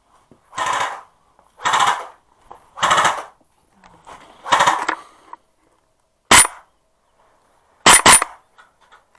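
Four short rattling bursts about a second apart, then an airsoft rifle firing three sharp single shots, the last two in quick succession, each with a faint high ring.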